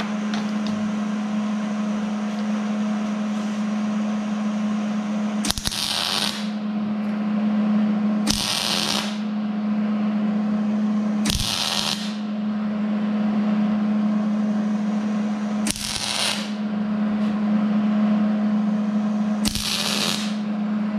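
Wire-feed (MIG) welder laying short stitch welds on 1/4-inch steel flat bar: five separate bursts of arc crackle, each under a second, spaced a few seconds apart. A steady low hum runs underneath throughout.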